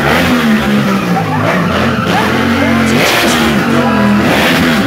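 Sport motorcycle engine revving up and down repeatedly, with the rear tyre squealing and skidding as the bike spins on the spot.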